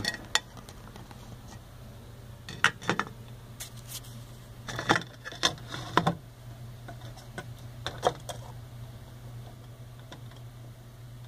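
Scattered light clicks and clatters, a few at a time, from a metal mesh terrarium lid and heat-lamp fitting being handled, with a steady low hum underneath.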